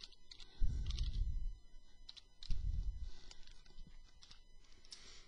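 Keys of a computer keyboard typed one at a time, a few scattered clicks a second, as a short command is entered. Two low, muffled rumbles under a second long come about half a second and two and a half seconds in.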